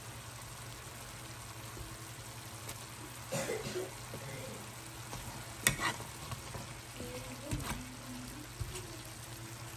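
Beef bulgogi with garlic and onions frying in a pan with a low, steady sizzle. A spatula stirs and clacks against the pan a few times, most sharply about six seconds in, over a steady low hum.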